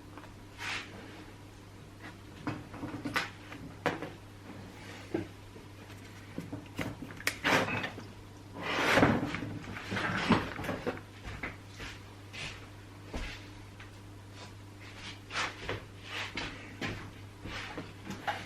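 Chainsaw parts being handled and fitted on a workbench: irregular clicks and knocks, with a longer scraping rustle about nine seconds in, over a steady low hum.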